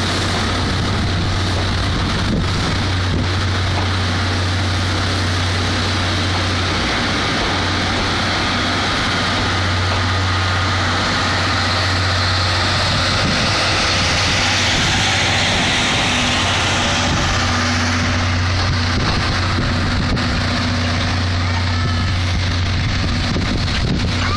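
Passenger coaches of a steam-hauled train rolling past at low speed, with a steady rushing rumble of wheels on rails and a constant low hum underneath.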